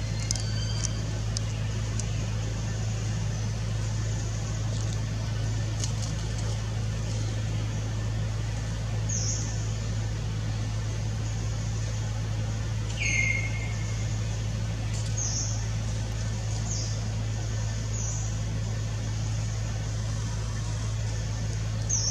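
Short, high chirps that fall in pitch, a few seconds apart, with one lower and louder chirp about 13 seconds in, over a steady low hum.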